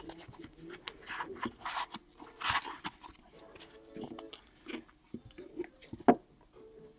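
Trading cards and their packaging being handled and sorted: a run of short rustles and light clicks, with a sharper click about six seconds in.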